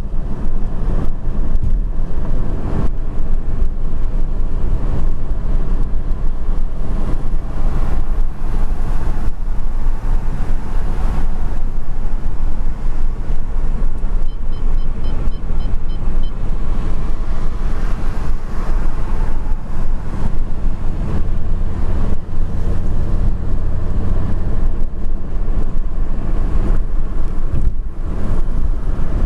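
Steady road and engine rumble heard inside a car's cabin while it cruises at highway speed, with a short run of faint high ticks near the middle.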